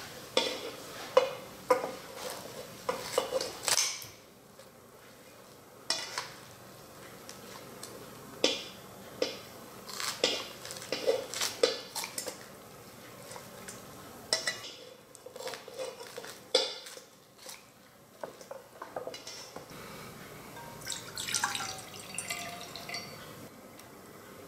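Kitchen scissors snipping through dried pollack over a stainless-steel bowl and mesh strainer: a string of sharp clicks and clinks as the blades close and the pieces knock against the metal. Near the end, a spatula scraping in a steel bowl.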